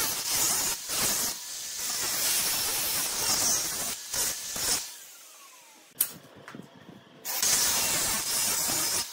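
Angle grinder grinding a flat steel strap: a steady, loud hiss of the disc on metal with brief dips. It stops about five seconds in, with a single sharp click in the gap, and starts grinding again about seven seconds in.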